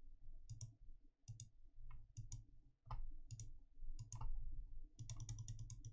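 Computer mouse clicking faintly, single clicks every half-second or so, then a quick run of clicks about five seconds in.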